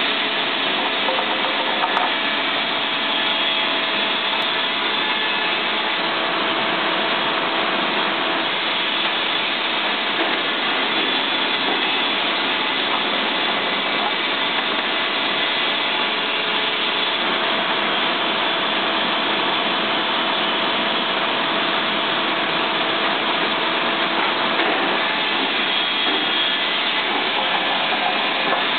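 Baker 40 hp electric carousel resaw running continuously, its band blade sawing glued aspen blocks without a break. Steady sawing noise with a few steady tones running through it.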